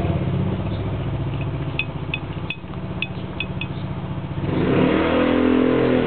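A motor vehicle's engine running steadily, then revving up about two-thirds of the way in, with a few short high chirps in the middle.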